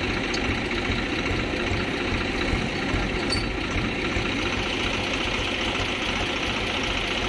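Swaraj tractor's diesel engine idling steadily.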